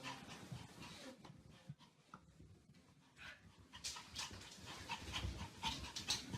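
A dog panting, faint at first and growing louder from about four seconds in.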